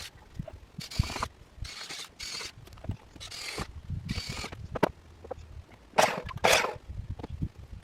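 Hand work on wooden 2x4 framing: short rasping strokes, roughly one a second, with scattered light knocks and clicks.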